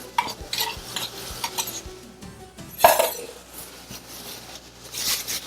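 Cooking utensil clinking and scraping in a frying pan as pieces of pirarucu fish are added to sautéed vegetables, with a string of light taps and one louder clank about three seconds in.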